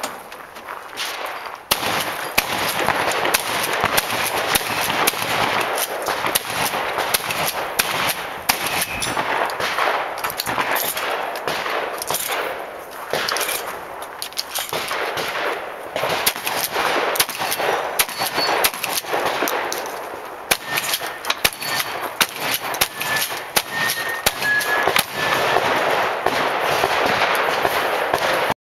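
Remington Versamax semi-automatic 12-gauge shotgun fired in quick strings, many shots close together with short lulls between, starting about two seconds in. A few brief metallic rings sound between the shots.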